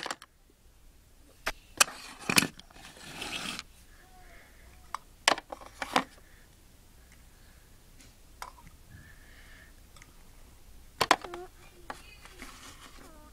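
Small plastic toy pieces (gift boxes and bags) being set down and moved about on a plastic playset: scattered sharp clicks and knocks, a brief scraping rustle about three seconds in, and another pair of clicks near the end.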